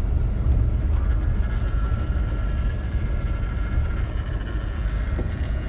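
Steady low rumble of a vehicle driving, with faint steady whine above it.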